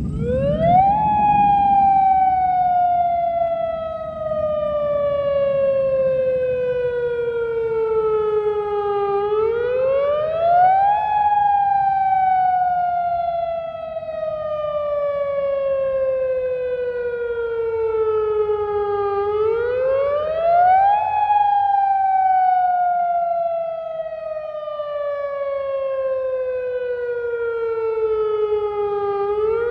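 All Hazard Alert Broadcast (AHAB) outdoor warning siren sounding its wailing tsunami-evacuation alert tone, here as a test. Each cycle the pitch climbs quickly for about a second, then falls slowly for about eight seconds, about three cycles in all.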